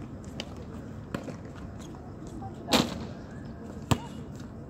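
Basketball bouncing on a hard outdoor court: single sharp thuds about a second apart, with one louder, longer hit a little past the middle.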